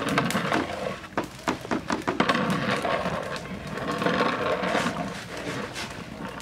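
Long metal paddle stirring boiling chicken khichuri in a large metal cooking pot: the thick rice and broth slosh and bubble, with frequent irregular clicks and scrapes against the pot.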